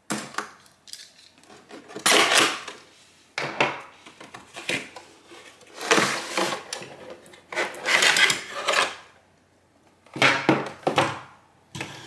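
A cardboard box being cut open with a small knife and unpacked: the blade scraping through the tape, then several bursts of rustling and scraping cardboard as the flaps are opened and a metal power strip with its coiled cord is slid out.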